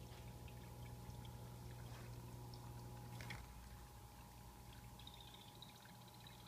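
Sky-blue poison dart frog (Hyloxalus azureiventris) starting a faint, rapid, buzzing trill about five seconds in, its male calling. Under it, the vivarium's small waterfall trickles steadily with a low electrical hum, and there is a single click about halfway through.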